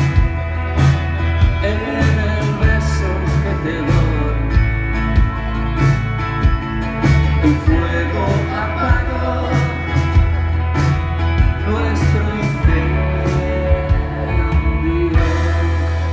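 A live rock band playing a song: a male voice singing over strummed acoustic guitar, keyboards, bass and drums keeping a steady beat.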